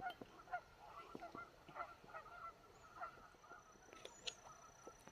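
A flock of geese honking: many short, faint calls overlapping.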